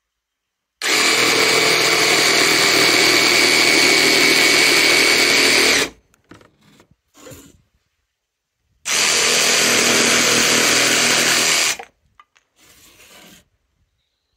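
Evolution cordless jigsaw sawing through a wooden dowel in two steady runs, the first about five seconds long and the second about three, each starting and stopping abruptly. Light knocks of handling come between and after the cuts.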